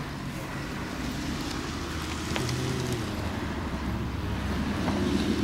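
Steady low engine hum, growing a little louder about halfway through, with a single faint click.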